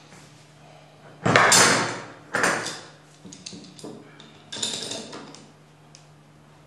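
Metal hand tools clattering and scraping as they are handled on a workbench: two loud clattering scrapes about a second apart, then lighter clicks and a third scrape, over a faint steady hum.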